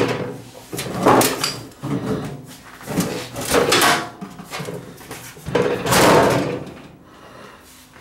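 Stainless steel outer cover of a Panasonic microwave oven being slid off its metal chassis, sheet metal scraping and rattling in several drawn-out scrapes. The longest and loudest comes about six seconds in.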